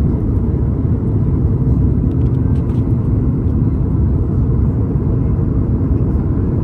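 Airliner cabin noise: a steady, low rumble of engine and air noise heard from inside the passenger cabin.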